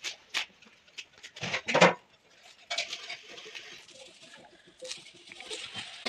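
Moringa leaves and thin stems rustling and snapping as they are stripped off by hand, with a string of short crisp crackles, the loudest just under two seconds in, between stretches of steady rustling.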